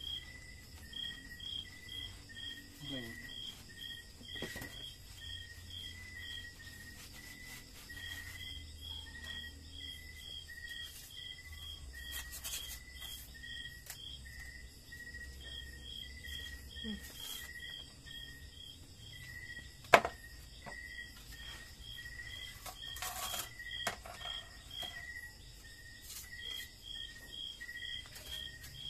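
Crickets chirping in steady, evenly spaced pulses at two different pitches, the higher one pausing now and then. A single sharp click about twenty seconds in.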